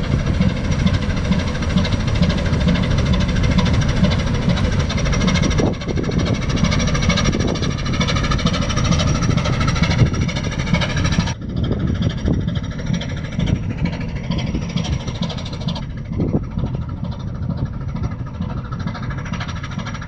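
Engine of the 1964 inland motor tank ship Styx running, loud and steady, strongest in the deep range with a set of steady tones above it. The sound changes abruptly about six, eleven and sixteen seconds in, where the recording cuts between takes.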